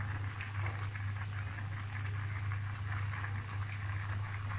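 Beef and spice paste frying in a karai with a faint sizzle and scattered soft crackles over a steady low hum, as handfuls of chopped cabbage are dropped onto it.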